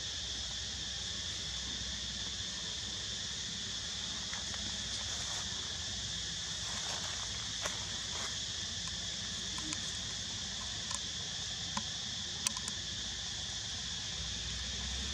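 Steady, continuous high-pitched insect chorus, with a few short sharp ticks in the second half.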